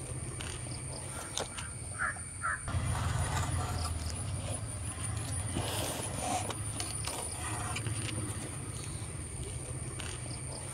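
A steady low rumble like a nearby engine running, with a crow cawing twice about two seconds in. Faint rustles and ticks from the banana-leaf bundle being tied with fibre string.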